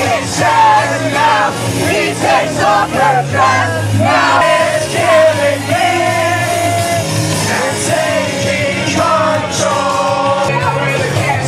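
Music: a song with a lead vocal melody over steady held bass notes.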